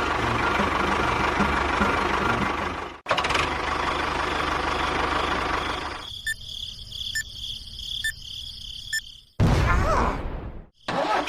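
Engine-like running sound with a rapid low chugging, cut off sharply about three seconds in and resuming. Later a high steady tone with a light tick about once a second, then a short loud burst near the end.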